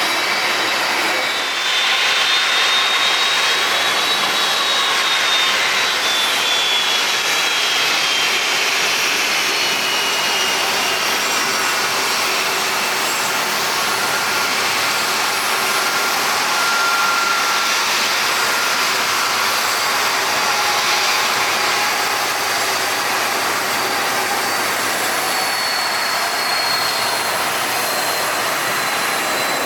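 Airliner jet engines running close by: a steady rushing noise with thin high whines that slide slowly down in pitch, and another whine rising in near the end.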